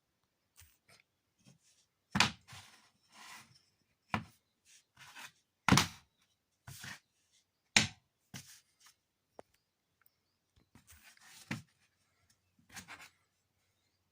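Hand tools at work in a small room: five or six sharp knocks about two seconds apart, with short scraping and rasping sounds between them.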